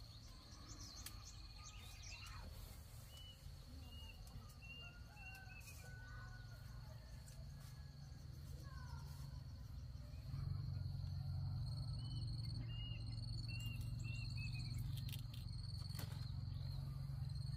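Countryside ambience: a steady high insect drone, with short chirps repeating in runs of three or four. Under it a low hum gets louder about ten seconds in.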